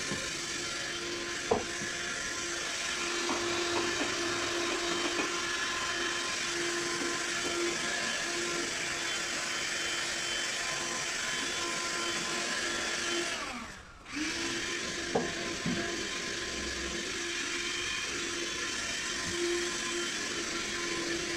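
Handheld vacuum cleaner running with a steady motor whine. It stops about two-thirds of the way through and spins back up with a rising whine. Two sharp knocks, one shortly after the start and one just after the restart.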